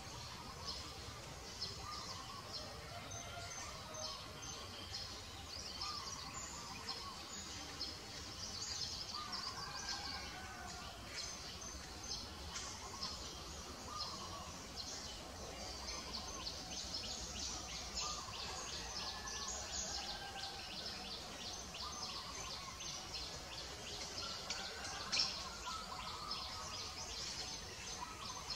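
Outdoor ambience of birds chirping: rapid high chirps run on throughout, with short curving calls every few seconds over a steady background hiss.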